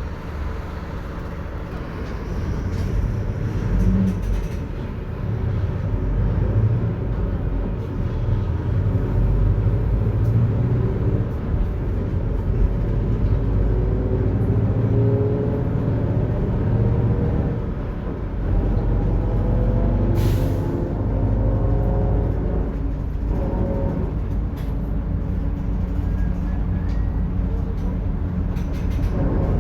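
Mercedes-Benz OF-1721 bus under way, its rear differential growling with a whine that rises and falls in pitch with road speed over the low rumble of the drivetrain: a noisy, worn-sounding differential. A short hiss of air about twenty seconds in.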